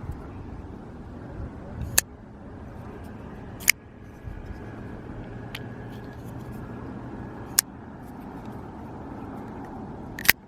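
A steady low rumble, like distant traffic, with four sharp clicks at irregular spacing of roughly two to four seconds.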